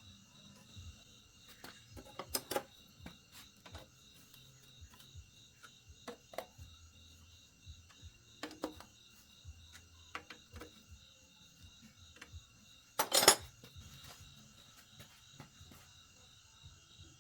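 Metal tools and parts clinking and knocking as they are handled, in scattered irregular strikes, the loudest a short clatter about thirteen seconds in, over a faint steady high-pitched hum.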